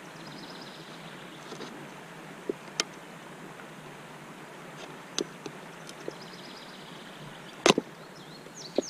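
A folding knife cutting through a thin clear plastic bottle: scattered small clicks and crackles of the plastic giving way, with one louder snap about three-quarters through.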